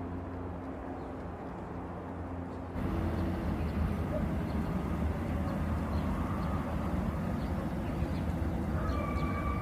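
Indian train running with a steady low rumble and hum; about three seconds in the sound jumps suddenly to a louder, rattling rumble. A faint steady high tone comes in near the end.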